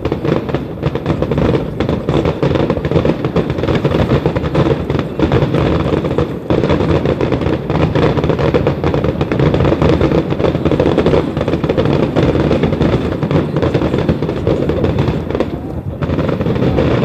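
Aerial fireworks going off in a rapid, continuous barrage: dense overlapping bangs and crackle with hardly a pause, easing slightly near the end.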